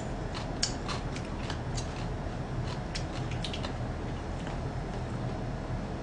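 Eating sounds: a string of soft, irregular clicks from chewing and spoon use, over a low steady hum.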